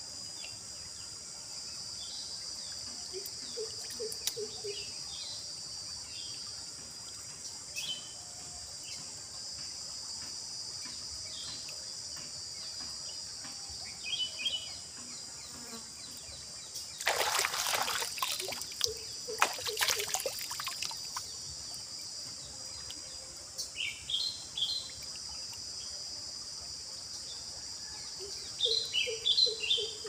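A steady high-pitched drone of crickets or similar insects, with scattered short bird chirps. From about 17 to 21 seconds in, loud splashing and sloshing as hands grope in shallow stream water around a rock.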